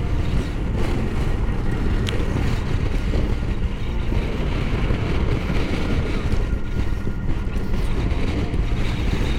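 Strong gusting wind buffeting the helmet-mounted microphone, a steady low roar over the Honda Africa Twin's parallel-twin engine running as the bike rolls along a gravel road.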